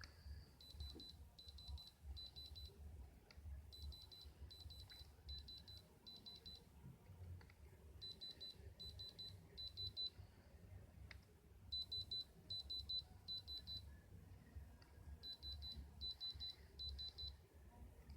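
Faint electronic beeping: short high-pitched beeps repeated quickly in five runs of two to three seconds each, with pauses between runs, over a low hum.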